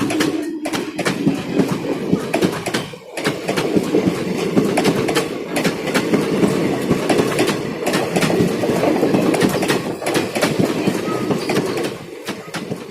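ICF passenger coaches of an express train rolling past at speed, their wheels clattering over rail joints in a steady stream of sharp clicks over a continuous rumble. There is a brief dip in the noise about three seconds in.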